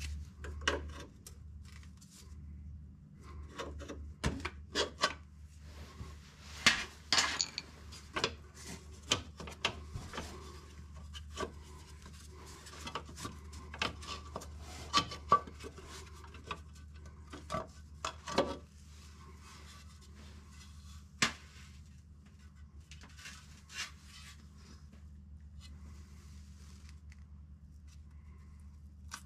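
Irregular metal clinks, scrapes and knocks of a screwdriver and parts being handled as the valve cover comes off an air-cooled VW flat-four's cylinder head, over a steady low hum. The knocks are thickest in the first two-thirds and grow sparse near the end.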